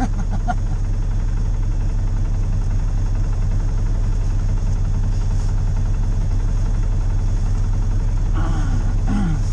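Side-by-side UTV engine idling steadily, a low even rumble heard from the seat inside the open cab.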